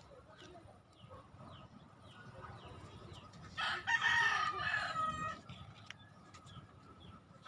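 A rooster crowing once, about three and a half seconds in, loud and held for about a second and a half. Small birds chirp repeatedly in the background.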